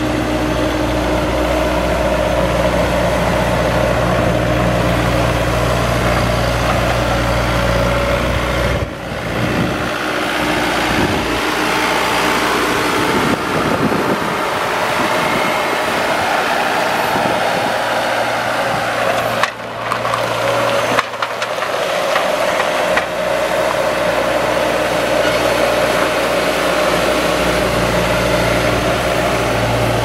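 Bobcat S185 Turbo High Flow skid steer loader's turbo diesel engine running, steady at first, then changing in pitch and load through the middle as the machine drives and raises its lift arms, with a few brief dips, before settling back to a steady run near the end.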